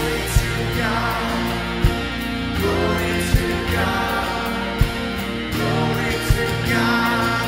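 Church worship music: voices singing over sustained instruments, with a steady beat about every second and a half.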